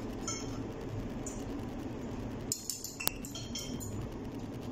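Spoons and forks clinking against bowls and plates while eating: a couple of light clinks early, then a quick cluster of sharper clinks a bit past halfway, one of them ringing briefly. A steady low hum runs underneath.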